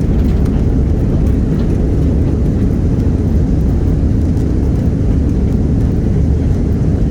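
Steady low rumble of an Airbus A330-300 heard inside the passenger cabin after landing: engine and airframe noise as the aircraft rolls along the ground.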